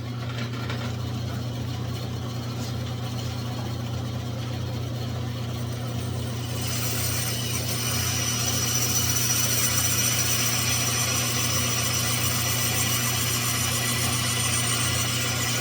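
Bandsaw running with a steady motor hum. About six seconds in, a higher hiss joins and holds as the blade starts cutting into the wood.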